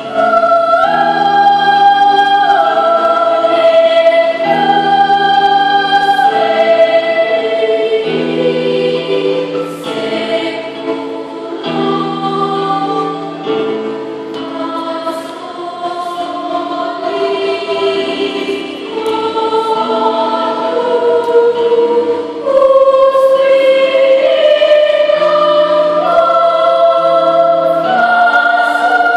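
Children's choir singing a hymn in held, sustained chords. It sings softer through the middle and louder again for the last several seconds.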